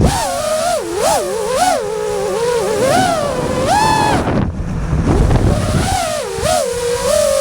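FPV quadcopter's brushless motors whining, the pitch swooping up and down quickly with throttle changes, over wind rushing past the onboard microphone.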